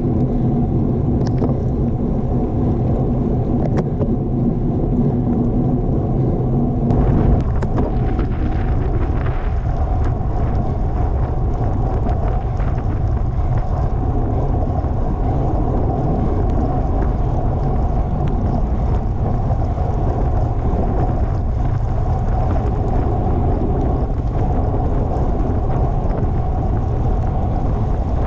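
Steady wind rushing and buffeting over the microphone of a camera riding along on a road bicycle in a race, heavy in the low end. The sound shifts and brightens a little about seven seconds in.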